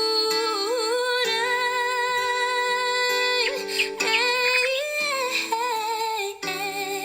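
Background music: a wordless melody line of long, wavering held notes over sustained chords.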